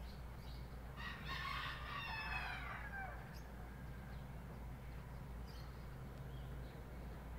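A rooster crowing once, about a second in: one call of about two seconds whose pitch falls at the end.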